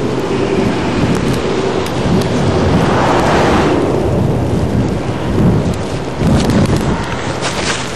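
Wind buffeting the camcorder's microphone in a snowstorm: a loud, gusting rumble with hiss, swelling briefly about three seconds in.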